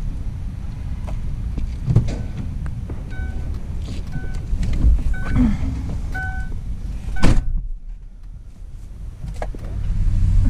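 Inside a van with the engine running, a warning chime beeps steadily about twice a second, then a door shuts with a loud thud and the outside noise drops.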